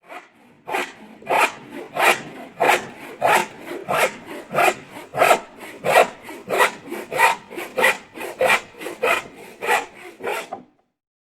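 Handsaw cutting through wood: a steady back-and-forth stroke rhythm, about three strokes every two seconds, that stops just before the end.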